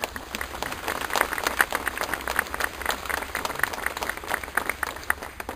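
A crowd applauding: dense, irregular clapping that stops abruptly near the end.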